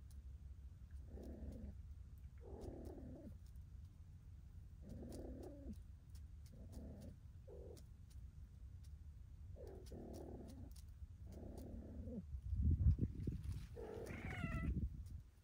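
Stray cat giving a run of low, drawn-out yowls, about nine, one every second or so: the caterwauling of cats courting or mating. Near the end comes a louder, higher yowl over a loud low rumble.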